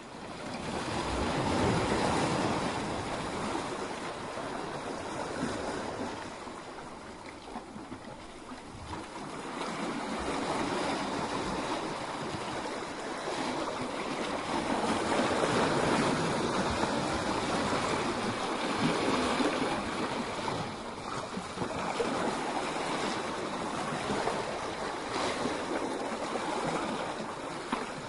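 Sea waves surging and breaking against rocks: a continuous rushing wash of surf that rises and falls in several swells, loudest about two seconds in and again around the middle.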